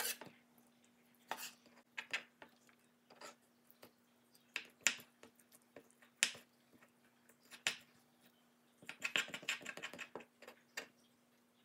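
Knife and then spoon knocking and scraping on a bamboo cutting board: scattered single knocks about a second apart, then a quick run of spoon scrapes near the end as the tuna flesh is scraped off its silver skin.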